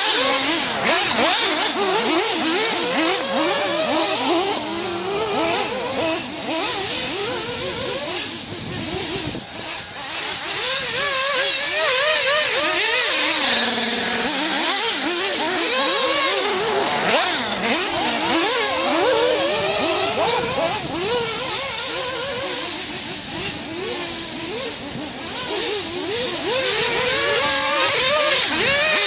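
Small nitro engines of 1/8-scale RC off-road buggies revving hard, their pitch rising and falling as they accelerate and brake around the dirt track.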